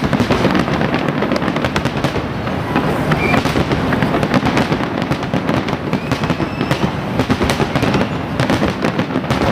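Fireworks display: a dense, continuous barrage of shell bursts and rapid crackling, many sharp bangs a second with no break.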